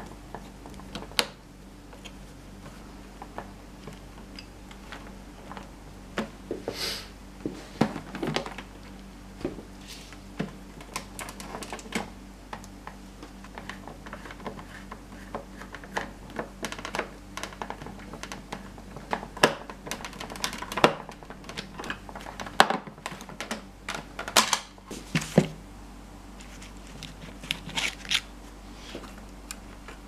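Screwdriver and hands working on the plastic housing of an old vacuum cleaner while the power cord is removed: irregular clicks, taps and knocks of tool and parts on hard plastic, over a faint steady hum.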